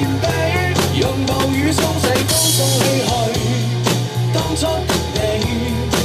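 A drum kit played along to a pop song's backing track: snare and bass drum hits over a melody and a steady bass line, with a cymbal crash about two seconds in.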